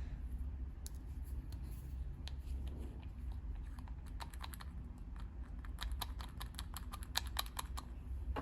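Slime being squeezed and worked by hand, its trapped air popping in sharp clicks: a few scattered at first, then a quick run of several clicks a second in the second half, over a low steady hum.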